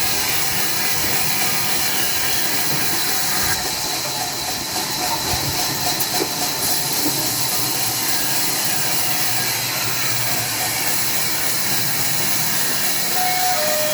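Sawmill saw running steadily, a loud continuous hiss-like noise.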